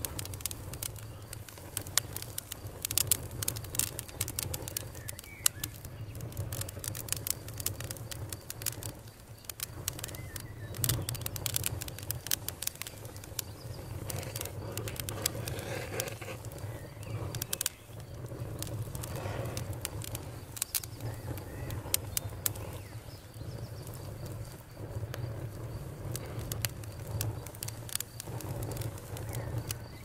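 Wood campfire crackling, with frequent sharp pops and snaps over a low, steady rumble. Birds call faintly in the background.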